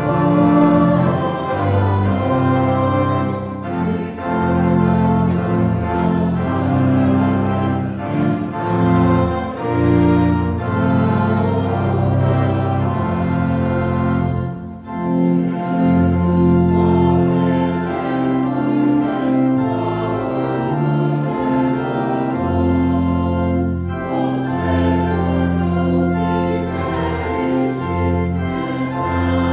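Church organ playing a hymn in full, sustained chords, with a choir and congregation singing along. The music breaks off briefly about halfway through, between two stanzas, then carries on.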